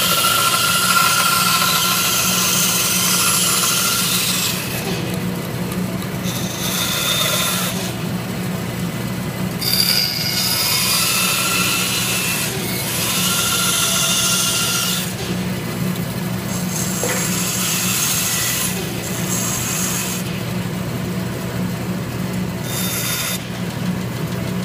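Bandsaw running with a steady motor hum while its blade cuts through a wooden block, the high cutting noise rising and falling away again several times as the piece is fed into the blade in short cuts and pulled back.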